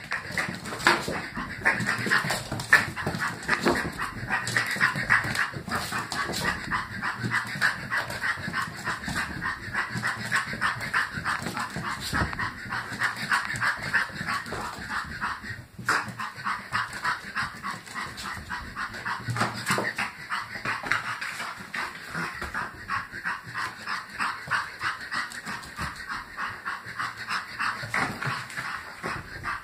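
Three-month-old pug puppy breathing hard as it runs in circles: a quick, even rhythm of panting and snorting breaths, several a second.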